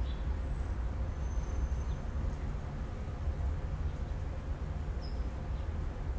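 Steady outdoor background noise, mostly a low rumble, with a few brief faint high chirps.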